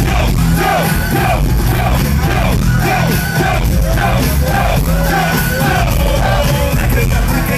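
Live hip-hop concert music played loud through a stage sound system, with heavy bass and voices over it, and a crowd yelling and cheering along.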